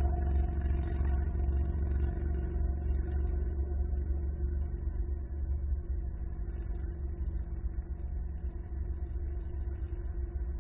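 Steady low rumble and hum of road traffic, easing slightly about halfway through.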